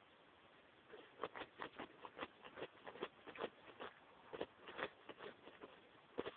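Dog digging a hole in sandy, gravelly soil: quick, irregular scratches and scrapes of dirt, several a second, starting about a second in.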